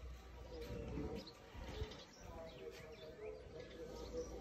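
Faint birdsong: a dove cooing with low held notes while small birds chirp.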